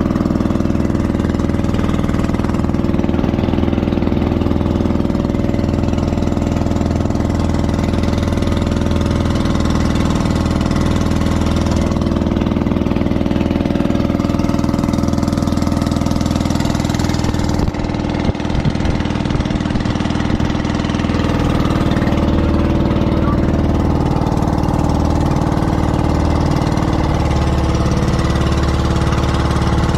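Motor banca's inboard engine running at a steady cruising pitch, a continuous drone; its note shifts slightly about twenty-two seconds in.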